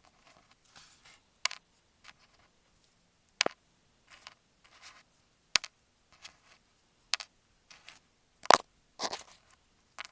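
Masking tape over an Apple EarPods microphone being scratched and tapped, heard very close through that same microphone. It gives irregular sharp clicks and short scratchy rubs with quiet gaps between them, and a louder pair of scrapes near the end.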